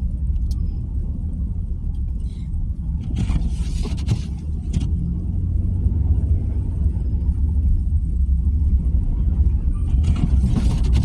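Car driving slowly in snowy traffic, a steady low road and engine rumble heard from inside the cabin. Two short stretches of hiss come through, one about three to five seconds in and one near the end.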